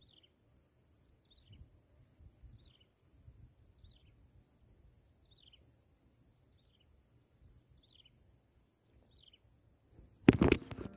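A bird repeating a short falling run of high notes about once a second, over a steady high hiss and faint low rumble. Loud electronic dance music with a heavy beat cuts in suddenly near the end.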